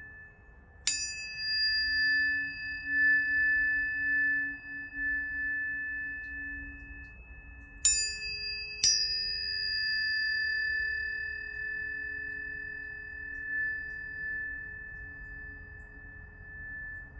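Biosonics planetary tuning forks struck three times, once about a second in and twice in quick succession near the middle. Each strike leaves a long, clear ringing tone that swells and dips in loudness as it slowly fades.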